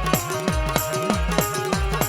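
Gujarati folk devotional music without singing: a hand drum beats about three strokes a second, each low stroke dropping in pitch, under held melody notes and a bright treble stroke on the beat.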